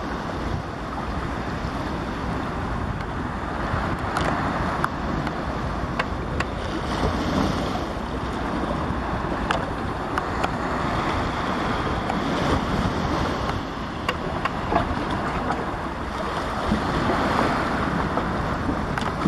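Sea surf washing against the rocky shore, with wind rumbling on the microphone and a few short clicks scattered through.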